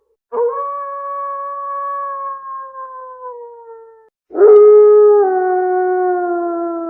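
Wolf howling twice: a long howl that slowly falls in pitch and fades, then after a short break a louder, lower howl that steps down once and carries on, gradually falling.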